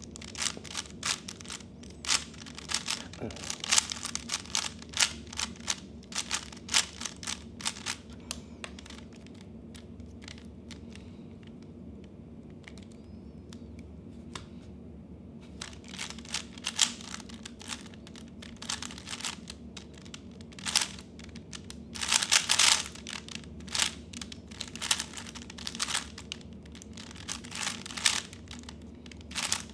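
3x3 speed cube being turned fast, its plastic layers clicking in rapid runs, with a lull of several seconds in the middle and a loud burst of turning about two thirds of the way in.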